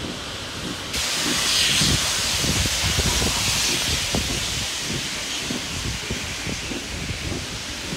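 Steam locomotive 5917 letting off steam: a loud hiss starts suddenly about a second in and slowly eases, over the low rumble of the carriages running on the rails.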